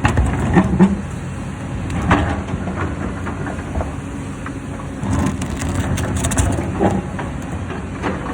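Hyundai excavator engine running steadily under load, with irregular knocks and cracks of stone being broken and moved, the sharpest about half a second in, near two seconds and near seven seconds.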